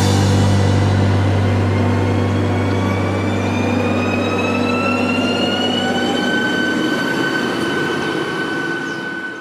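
Škoda RegioPanter electric multiple unit pulling away and accelerating, its traction drive whining in a rising pitch over a steady low hum. The whine levels off after about six seconds and the sound grows fainter near the end as the train moves off.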